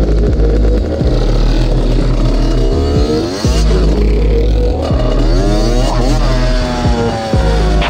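Small dirt bike engine being ridden hard over gravel, its pitch rising and falling several times as the throttle is worked.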